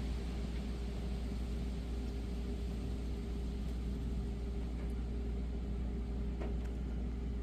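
Wind blowing, a steady low rumble and rushing noise, with a faint steady hum underneath.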